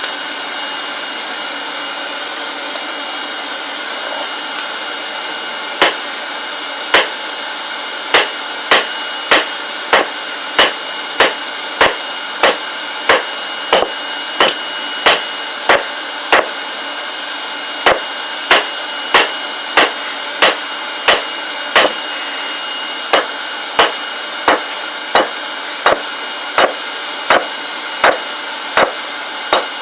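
Hand hammer striking hot rebar on an anvil to forge a blade: a long run of ringing blows, about one and a half a second, beginning some six seconds in with two short pauses. A steady rushing hiss runs underneath.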